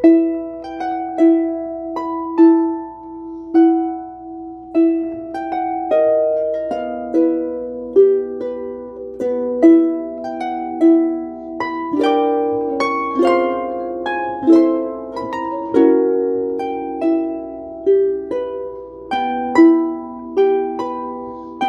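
Background music: a gentle plucked-harp melody, slow notes that ring and fade, about one a second, with fuller chords in the middle.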